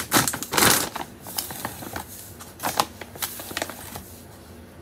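Plastic pouch of citric acid crystals crinkling and rustling as gloved hands handle it and pull it open. The crackling is loudest in the first second, then comes in scattered bursts that fade out near the end.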